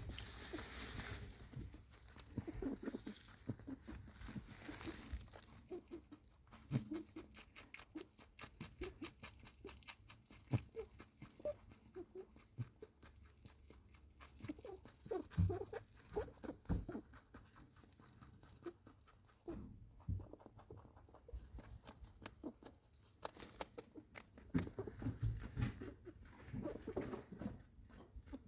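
Pet rabbit making small sounds: a dense, irregular run of soft clicks and patter, with short low squeaks now and then.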